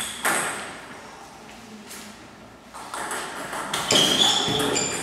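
Table tennis ball being struck back and forth in a doubles rally, making sharp clicking pings off the bats and the table. There is one hit right at the start and a lull of about two seconds, then the hits come quickly again in the last two seconds.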